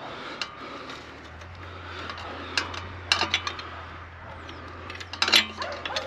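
Metal spanners clinking and tapping a few times on the cast-iron engine block while a bolt is worked. A steady low hum comes in about a second in.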